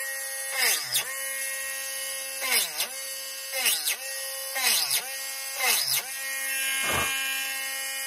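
Small Dremel rotary tool running with a steady whine. Its pitch dips sharply and recovers about six times, as the bit is pressed into the wooden fingerboard deck to cut each countersink and the motor slows under load.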